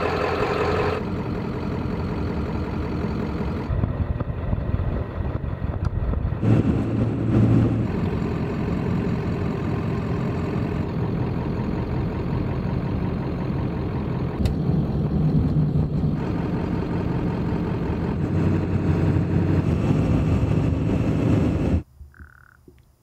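Diesel pickup truck engine running steadily, its pitch and texture shifting at several cuts. About 22 seconds in it cuts off abruptly, followed by a single caw from a large black corvid.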